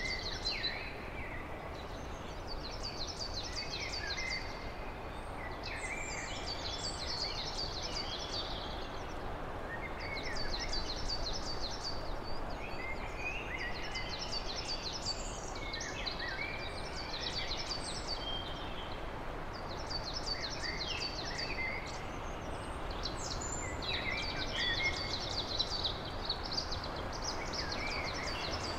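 Songbirds singing short, quick trilled phrases, one after another every few seconds, with lower chirps between them, over a steady background hiss.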